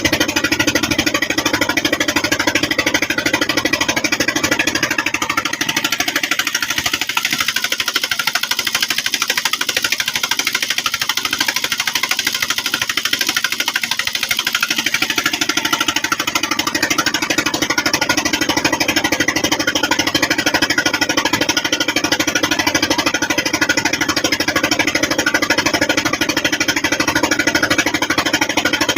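Boat engine running steadily with a rapid knocking beat.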